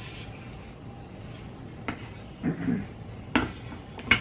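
Three light, sharp knocks of wooden carvings being handled and set down on a tabletop, the first about two seconds in, with a short wordless murmur of voice between them.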